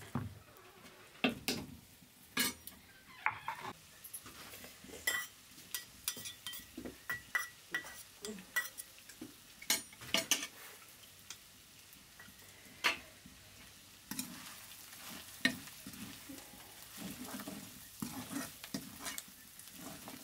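Steel spoon stirring and scraping chicken curry in a metal pan, clinking irregularly against the pan's sides, over the sizzle of the frying curry. The sizzle becomes steadier in the second half.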